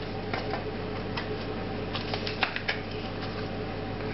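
Onion and chicken-stock mixture simmering in a saucepan, with scattered soft pops and crackles, bunched together around the middle, over a steady low hum.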